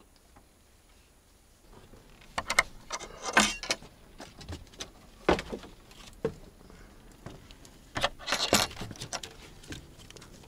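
Clinking and clattering of small hard objects being handled, in two loud bunches of sharp clicks about two and a half and eight and a half seconds in, with single knocks between.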